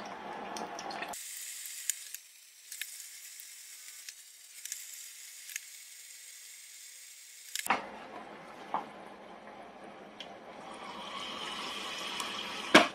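Potato chips frying in hot oil in a mini deep fat fryer, on their second fry near 190–200 °C: a steady sizzle and crackle of bubbling oil with scattered small clicks. The sound grows a little louder near the end, and a sharp clack comes just before it ends.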